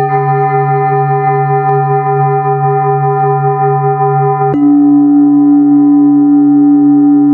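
Sustained ringing tones with a slow wobble, of the singing-bowl kind. About four and a half seconds in, a sharp click and an abrupt switch to a louder, lower-centred ringing tone.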